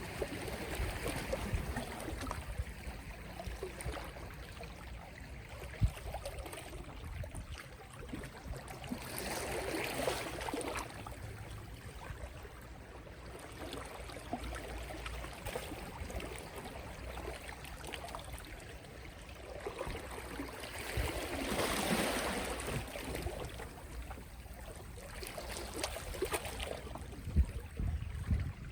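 Gentle sea waves lapping and washing on the shore, the wash swelling about ten seconds in and again a little after twenty seconds, over a steady low rumble. Two brief knocks stand out, one early and one near the end.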